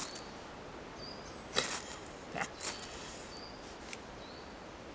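A fire striker scraped a few times to throw sparks onto King Alfred's cake fungus, short sharp scrapes with the loudest about one and a half seconds in; the fungus is not catching.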